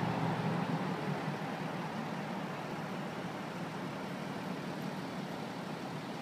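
Steady city street noise of traffic, with a low engine hum that fades over the first second or two.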